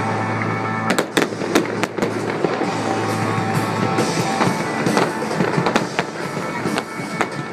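Fireworks bursting, with a cluster of sharp bangs about a second in and scattered cracks after, over music with held notes.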